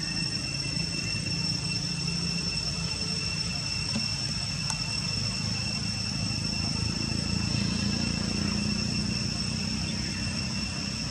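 Steady insect drone, a constant high whine, over a low continuous rumble.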